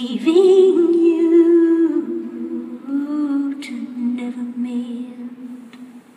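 A woman's voice singing long, drawn-out notes with vibrato, almost unaccompanied. A higher note is held at the start, then the voice drops to a lower note that is held and fades near the end.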